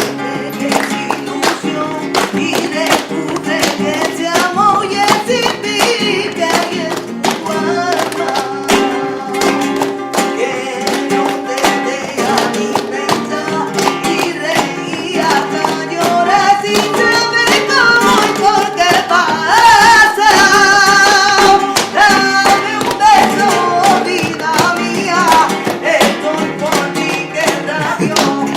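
Flamenco music: guitar with a singer's wavering voice over a steady run of sharp percussive strikes, the voice strongest past the middle.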